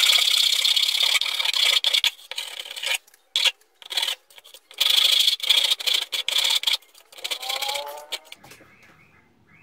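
Flat hand file scraping across the end grain of a pallet-wood board, rounding off its corner. There are a few long strokes and some short ones, and they stop about a second before the end.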